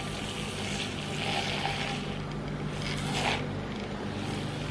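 Handheld battery-powered milk frother running in a stainless tumbler of coffee, its small motor humming steadily while the whisk swirls the liquid, briefly louder about three seconds in. Its batteries are weak, which the owner says need replacing.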